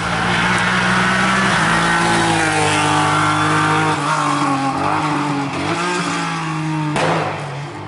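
Race car engine at full throttle, accelerating hard up a hillclimb road, its pitch stepping down at each gear change. A sudden sharp crack sounds about seven seconds in.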